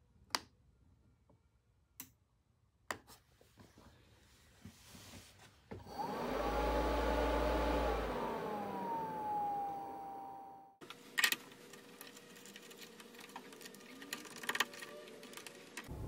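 A few clicks on the Vevor 5 kW diesel heater's controller, then the heater starting up: its blower fan whirs up and its whine glides down in pitch for about five seconds before cutting off suddenly. Faint handling clicks follow.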